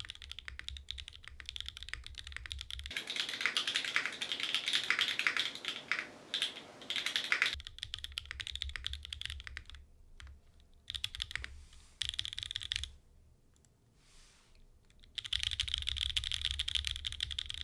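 Typing on a Mode Envoy mechanical keyboard with Obscura linear switches, GMK Botanical keycaps and no foam inside the case. Keystrokes come in bursts, busiest in a fast stretch in the first half, with a pause about three-quarters through before the typing picks up again.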